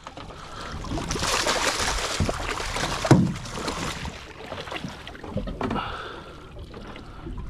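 Water splashing at the side of a boat as a canary rockfish thrashes at the surface, with a sharp knock about three seconds in.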